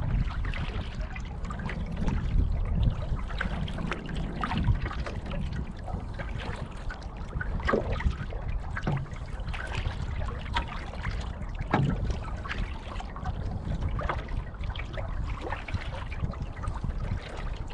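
Small waves lapping and splashing against a canoe's hull, with irregular trickles and little splashes, over a steady low rumble of wind on the microphone.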